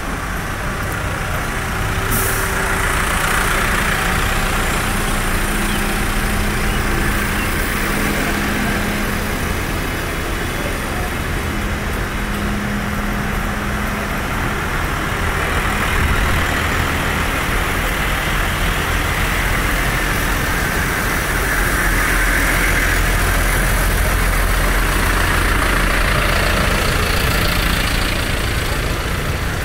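Diesel engines of a slow convoy of large farm tractors running as they pass close by, mixed with street traffic.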